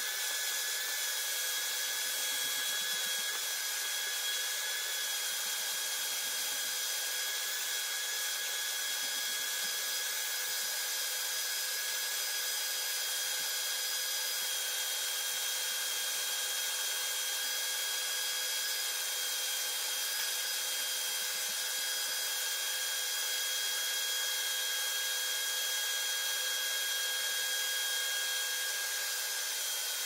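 Vacuum cleaner running steadily with a whine, its nozzle drawn down the dust-clogged fins of a portable air conditioner's coil.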